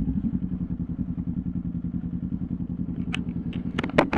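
Motorcycle engine running at low speed as the bike rolls slowly, a steady low pulsing drone. A few sharp clicks and clatters come near the end, the loudest about four seconds in.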